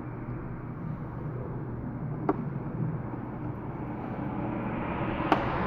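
Steady background rumble with two small sharp clicks, about two seconds in and near the end, from a small screwdriver and screws being worked on the iPad's home-button bracket.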